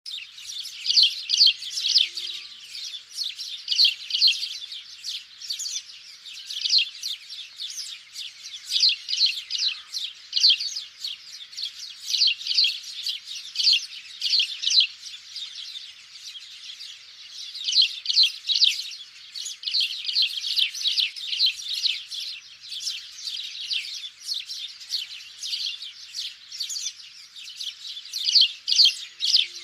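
Sparrows chirping in a dense, continuous chorus of rapid, overlapping chirps that rise and fall in bouts of a few seconds.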